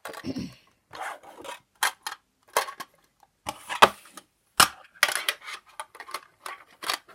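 Fidget spinners being picked up and handled, clacking against each other and a hard surface in irregular clicks and short rattles.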